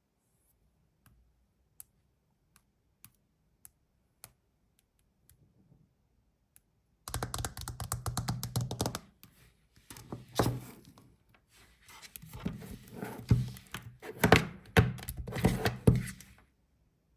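Handling noise: a few scattered light clicks, then from about seven seconds in a busy run of rubbing, clicks and heavier knocks. It stops shortly before the end.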